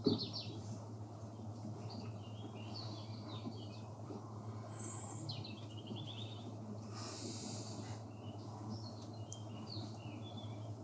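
Small birds chirping and calling in short, high notes throughout, over a low steady hum. About seven seconds in there is a brief hiss lasting about a second.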